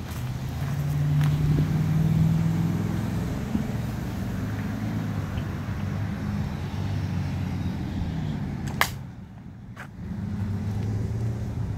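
Road traffic: a low engine rumble from passing motor vehicles. A sharp click comes near nine seconds in, and the rumble drops away for about a second before returning.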